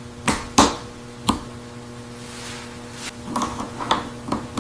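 A few sharp knocks and clicks over a steady low hum: three separate knocks in the first second and a half, then a quicker run of clicks near the end.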